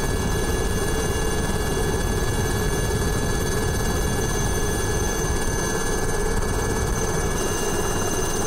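Military helicopters flying, a steady rotor and engine noise with a dense low rumble and several thin steady high tones over it.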